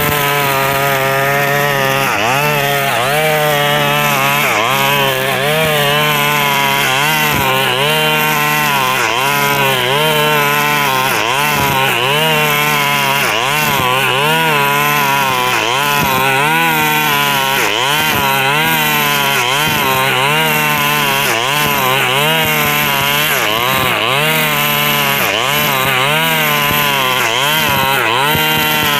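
KNC 4400 brush cutter engine running loud at high speed while cutting grass with nylon line, its pitch dipping and recovering over and over, about once or twice a second. The muffler is rusted through with small holes, which gives it a loud, rough exhaust note.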